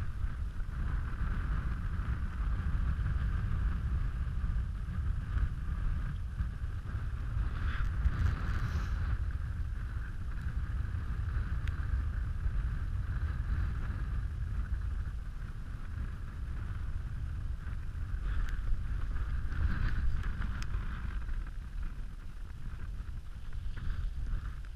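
Wind blowing over the microphone of a camera set on open snow: a steady low rumble with a faint hiss above it.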